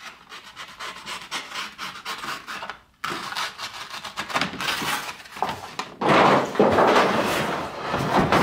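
Plastic tool case sliding out of its cardboard box: cardboard rustling and scraping against plastic, faint at first, louder from about three seconds in and loudest near the end.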